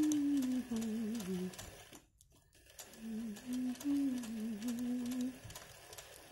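Domestic sewing machine stitching hand-guided free-motion embroidery, the needle ticking rapidly under a low, wavering pitched hum. The sound runs in two spells, broken by a brief cut-out about two seconds in.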